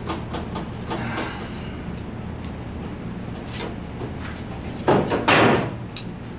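Hand work on a VW Beetle door being stripped: scattered light clicks and knocks, a short scratchy rub about a second in, then a loud scrape about five seconds in.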